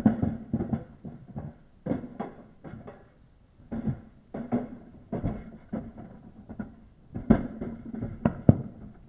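Footsteps crunching and scraping over loose broken brick and concrete rubble, in uneven groups of short impacts, with two sharper knocks near the end.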